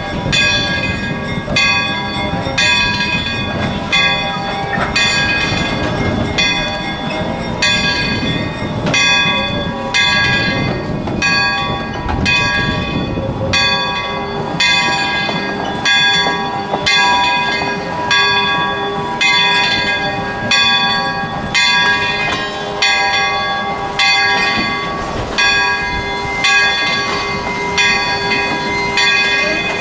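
Great Northern 1355 steam locomotive's bell ringing steadily, about one strike every 1.3 seconds, each stroke ringing on, over a low rumble.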